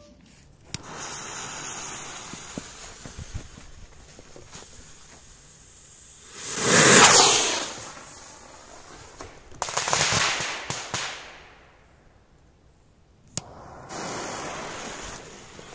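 Firework rockets going off: several rushing hisses with sharp cracks. The loudest rush comes about seven seconds in and lasts over a second, and another with crackling follows about ten seconds in.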